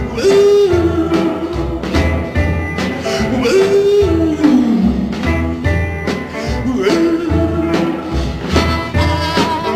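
Electric blues band playing, with a man singing three long held notes, the middle one sliding down in pitch, over guitars and a steady low beat.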